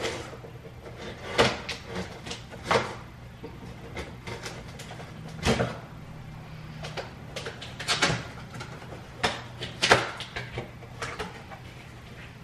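Kitchen knife cutting the packing tape of a cardboard shipping box and the cardboard flaps being worked open: irregular scrapes, clicks and knocks of cardboard, the loudest a little over a second in and again near ten seconds. A low steady hum lies underneath.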